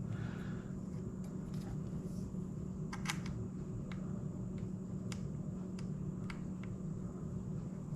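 Small sharp clicks and ticks as a Quad Lock phone mount is tightened onto the motorcycle, the loudest about three seconds in, over a steady low hum.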